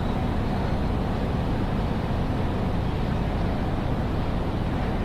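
Steady ambience of a large railway station hall: an even, low-heavy rumble with no distinct events standing out.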